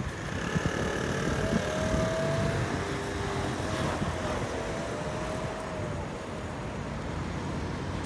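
Steady city street traffic noise, with a faint drawn-out wavering whine for a few seconds in the middle.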